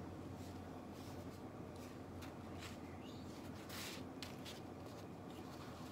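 Soft rustling and scraping of a tortilla wrap being handled and folded on a paper towel: a scatter of short scratchy sounds, one slightly louder just before four seconds in, over a faint low hum.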